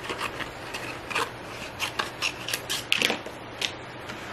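Steady hiss of heavy rain. Over it, a dozen or so irregular light clicks and taps of a cutting die and cardstock being handled and positioned at the craft table.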